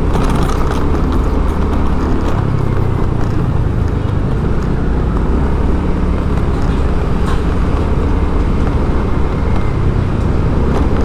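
Steady engine and road rumble of a moving vehicle, heard from on board.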